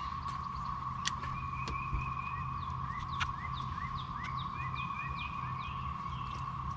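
A chorus of cicadas droning steadily at one pitch, with short chirps repeating over it from about two seconds in.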